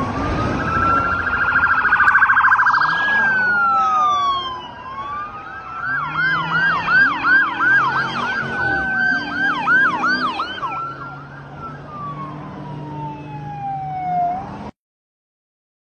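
Several police car sirens passing one after another and overlapping: slow rising and falling wails, a fast yelp, and a brief rapid warble near the start. The sound cuts off suddenly near the end.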